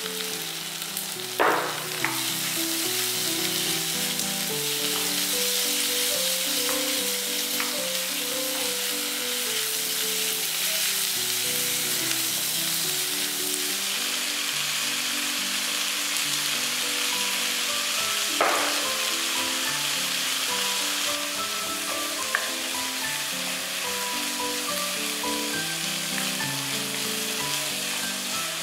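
Diced pork and onions sizzling in a hot pan as they are stir-fried with a wooden spatula, with a steady hiss throughout. A few sharper knocks stand out, the loudest about a second and a half in and another about two-thirds of the way through. Light background music with a stepping melody plays under it.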